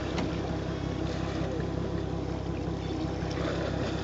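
Boat engine running steadily, a constant low hum under an even hiss.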